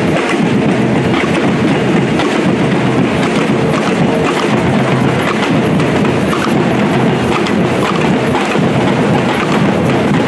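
A street drum band playing a loud, continuous beat, many snare drums and other drums together.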